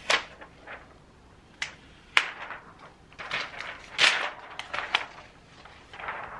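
Clear protective plastic film being peeled off a large pen-display screen and handled as a loose sheet: crackling and rustling with several sharp snaps at irregular moments.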